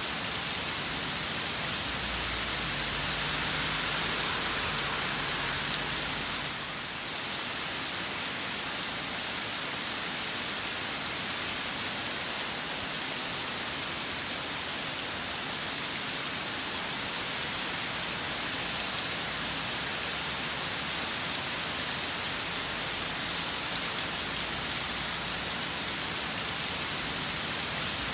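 Rain falling steadily in a storm, an even, unbroken hiss.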